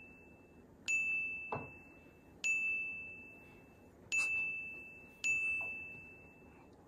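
A bell-like ding at one high pitch sounds four times at uneven intervals. Each ding starts sharply and rings out, fading over about a second.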